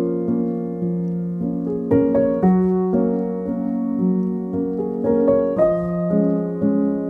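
Background piano music: slow, sustained chords that change every second or so over a held low note.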